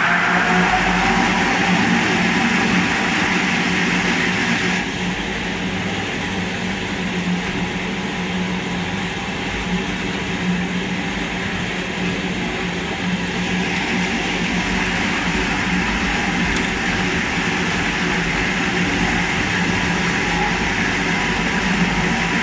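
Industrial mixing tank's electric agitator running, its motor giving a steady hum while the frame-and-paddle stirrer churns liquid in the tank. It gets a little quieter for a stretch in the middle, then comes back up.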